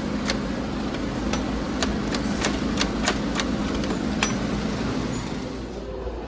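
About a dozen sharp clicks and knocks at irregular intervals, over a steady low machine hum.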